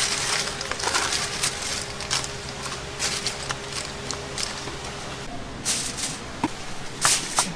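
Scattered clicks and knocks of utensils and food handling in a snack-shop kitchen over a steady low hum, with a few sharper knocks near the end.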